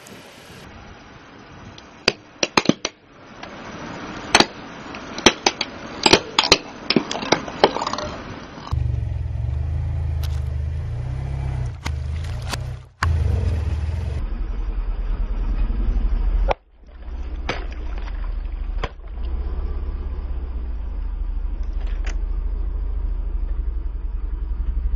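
A run of sharp cracks and pops as a car tyre rolls over and crushes small coloured baubles. About nine seconds in, this gives way to the car's steady low engine rumble as the tyre presses onto water balloons, with a few single pops scattered through it.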